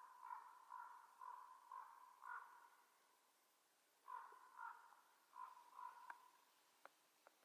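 A series of short, faint animal calls, repeated about two a second in two bouts with a pause in between.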